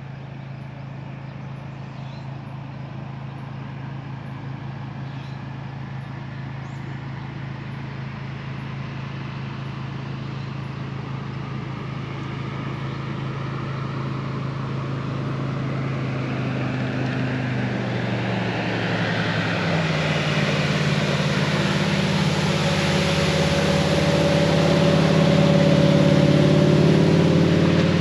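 Motorboat engine approaching, getting steadily louder. Its engine note drops in pitch about two-thirds of the way through, and a rushing of water and wind builds toward the end.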